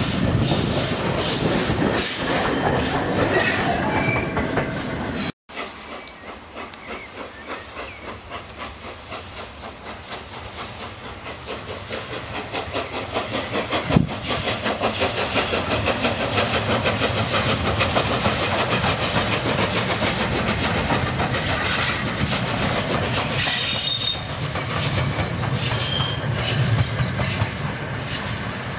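LNER Peppercorn A1 steam locomotive running under steam, its rapid, even exhaust beats and wheels on the rails. It cuts out briefly about five seconds in, comes back quieter, and grows louder as the engine draws nearer, with one sharp click midway.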